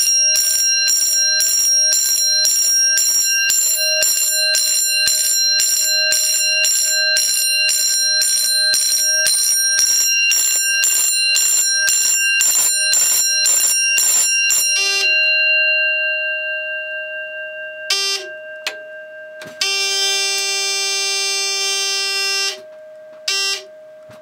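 Fire alarm bell on an EST 6601 panel's signalling circuit ringing in march time, loud pulsed strokes about two a second, for about fifteen seconds; then it stops and rings down. After that a buzzer sounds: a short buzz, a steady buzz of about three seconds, and another short buzz.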